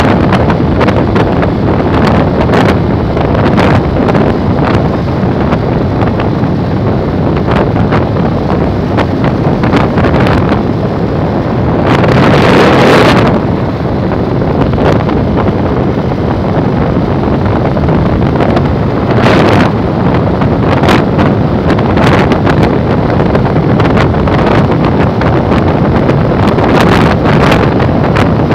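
Heavy wind rushing over the microphone of a Yamaha motorcycle cruising at highway speed, mixed with the bike's running noise. There is brief fluttering throughout, and a louder swell about twelve seconds in.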